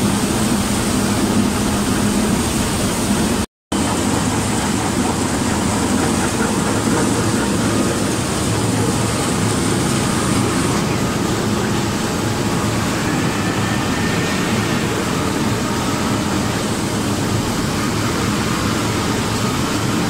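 Sand washing plant running: a bucket-wheel sand washer, a vibrating dewatering screen and a conveyor give a loud, steady noise of machinery and wet sand slurry. The sound drops out for a moment about three and a half seconds in.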